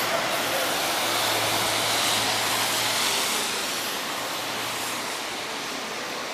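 City street noise: a steady wash of traffic sound, with a low engine hum coming and going.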